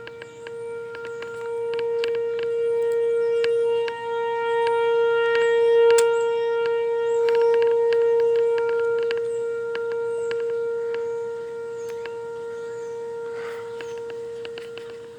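Whelen Vortex outdoor tornado warning siren sounding a steady single-pitch tone. It swells louder over the first few seconds to a peak about six seconds in, then slowly fades as the rotating horn turns away. It is signalling a tornado warning.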